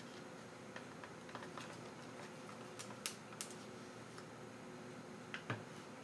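Metal spoon stirring thick glue and green paint in a plastic bowl, giving faint, irregular clicks and taps against the bowl, the sharpest about three seconds in and twice near the end.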